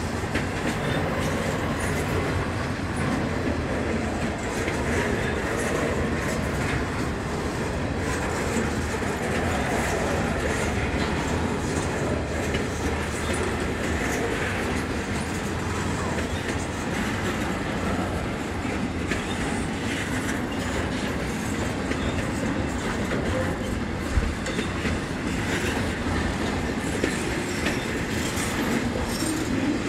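Double-stack container freight train rolling steadily past: a continuous rumble and rattle of intermodal well cars, with the wheels clacking over the rail joints.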